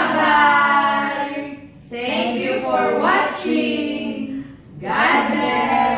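A group of voices calling out together in three long, drawn-out, sing-song goodbyes, each rising in pitch at its start.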